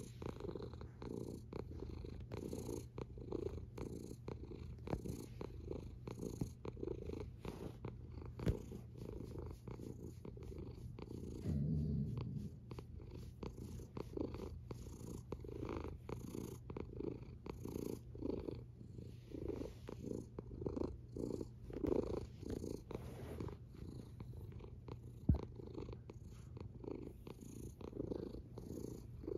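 Tabby cat purring steadily close to the microphone, the purr swelling and easing in even pulses with each breath, about once a second. A few brief knocks and one dull thump come through over it.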